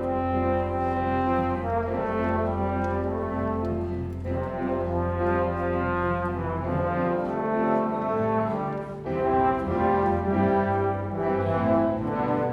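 Orchestra playing a sustained, brass-led Christmas arrangement in held chords. A low bass note underpins the first half and drops out about halfway through.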